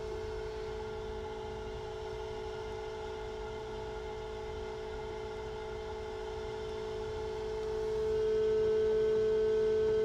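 Egg incubator running with a steady, even-pitched hum, louder for a couple of seconds near the end.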